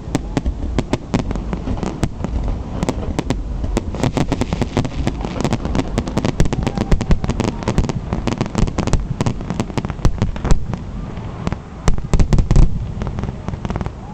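Fireworks display going off in rapid succession: a dense run of crackles and pops from fountains and aerial shells, with the heaviest bangs near the end, then thinning out for the last second or so.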